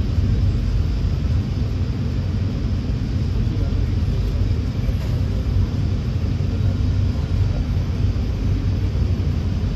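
Steady low rumble of a VIA Rail passenger train rolling along the track, heard from inside the passenger car.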